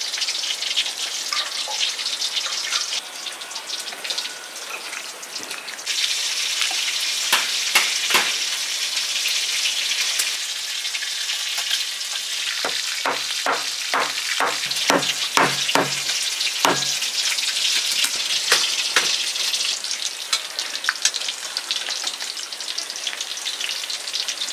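Tilapia sizzling as it fries in oil in a wok, a steady hiss that drops back for a few seconds early on. About halfway through there is a quick run of about ten sharp knocks.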